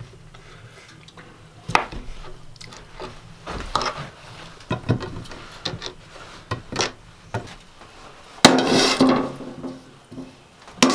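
Kitchen knocks and clatter: a knife cutting sausage on a plastic cutting board, then a steel skillet and spatula. Scattered single knocks, with one louder, longer clatter near the end.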